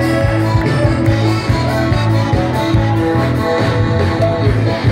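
Live band playing loud, upbeat music with a steady driving beat and a strong bass line.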